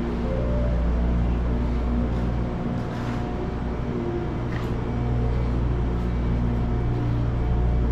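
Steady low drone of a standing train on the track, with several steady tones above it and a couple of faint clicks.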